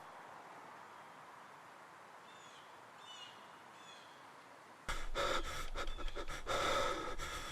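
Three faint, short high chirps of a small bird, a little more than half a second apart, over quiet background. From about five seconds in, a person's loud, breathy vocal sounds take over.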